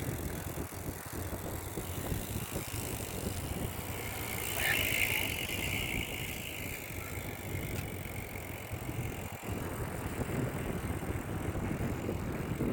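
Kestrel Talon road bike ridden at sprint speed: steady wind rush over the microphone and road noise from the tyres. A higher hiss swells about four and a half seconds in and fades a couple of seconds later.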